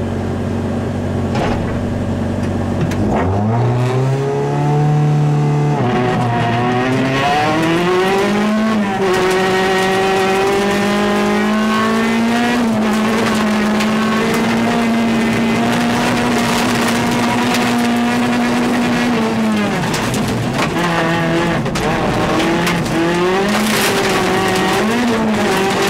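VW Golf rally car engine heard from inside the cabin, held at steady revs, then about three seconds in accelerating hard, climbing through the gears and running flat out for several seconds. Near the end the revs drop sharply and then rise and fall again, with a steady hiss of tyres on gravel underneath.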